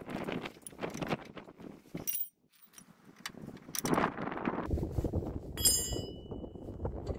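Steel hand tools, a ratchet, extension bar and sockets, clinking and knocking as they are handled and set down on the ground, with one sharper ringing clink about two thirds of the way through.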